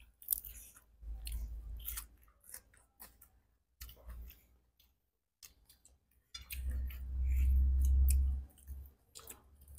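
Close-miked chewing and wet mouth clicks of people eating shrimp, in scattered short bursts. Two stretches of low muffled rumble, the longer and louder one lasting about two seconds near the end.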